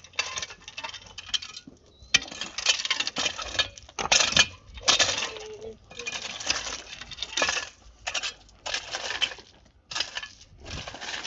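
Metal tool scraping and clinking through wet cement, in repeated irregular strokes of about a second each.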